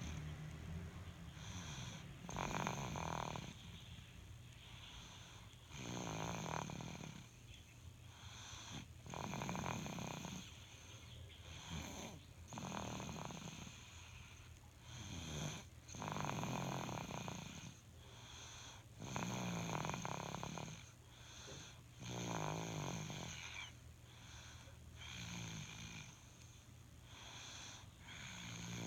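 Someone snoring in their sleep: slow, regular snores, one about every three seconds, each lasting about a second.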